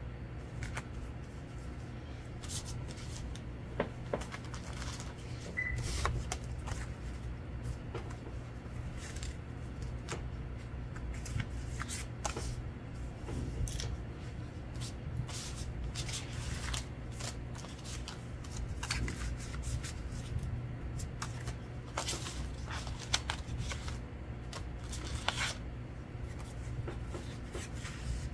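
Paper and card being handled: scattered soft rustles, taps and scrapes as a sheet of marbled paper is smoothed and a stiff lotto card is laid and pressed on top, over a steady low hum.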